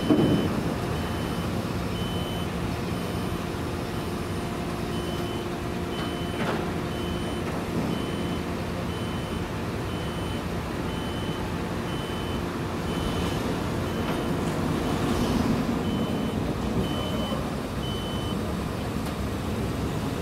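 Backup alarm beeping about once a second over the steady hum of a running truck engine as a Grumman Olson step van backs slowly down a lowboy trailer deck, with a couple of brief knocks.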